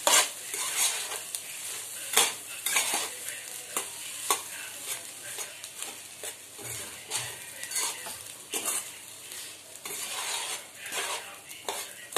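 Metal spatula stirring and turning cooked rice through scrambled egg in a pan, scraping against the pan in irregular strokes, a few each second.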